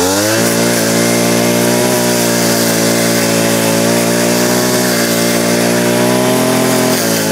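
Maruyama MBS3600RS 36cc two-stroke backpack brush cutter engine running loud and steady at high revs. Its revs dip briefly and climb straight back right at the start.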